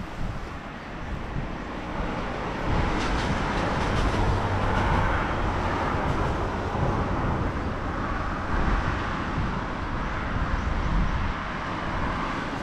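Steady outdoor background noise, a low rumble with a rushing hiss, that swells about two seconds in.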